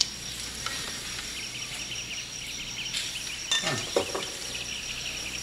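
Film-soundtrack room ambience: a steady hiss under rapid, repeated insect chirping, with a man's brief low murmur about three and a half seconds in.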